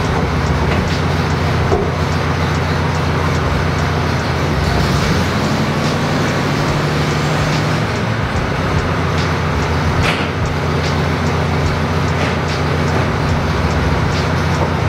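1970 VW bus's air-cooled 1600 flat-four engine running steadily at idle, its note shifting a little about halfway through. A sharp click sounds about ten seconds in.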